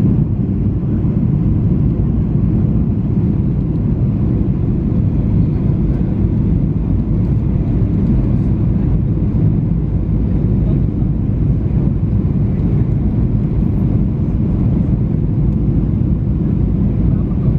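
Steady low rumble of a jet airliner's cabin noise on final approach, engines and airflow over the wing with flaps extended.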